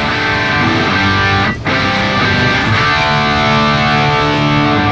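Background music with held chords, briefly breaking off about one and a half seconds in.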